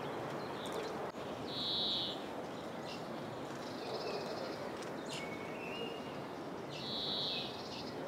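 Outdoor ambience: a steady hiss with two short high chirps, one about two seconds in and one near the end.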